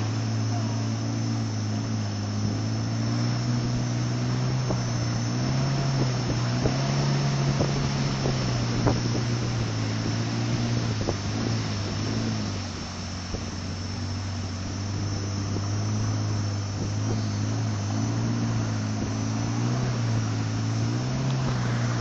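The longboat's outboard motor running steadily under way, its pitch rising and falling a little as the speed shifts, with wind and water rush around it.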